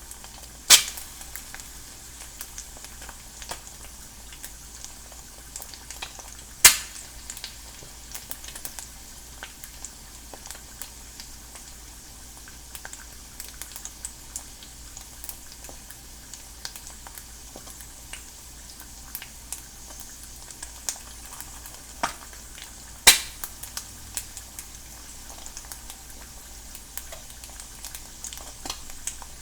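An egg frying in a non-stick pan: a steady sizzle full of small crackles, with a few loud sharp pops of spitting fat, one about a second in, one a few seconds later, and two close together near the end.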